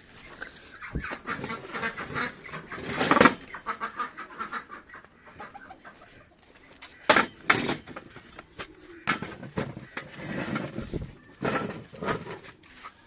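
Birds calling in irregular bursts, with several loud, sharp noises among them.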